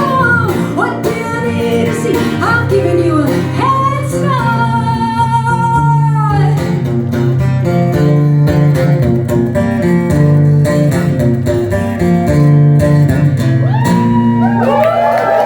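Live rock band closing a song: a woman singing long held, gliding notes over strummed guitar, bass and drums for the first six seconds, then the band playing on without vocals. Near the end the audience starts whooping and cheering over the music.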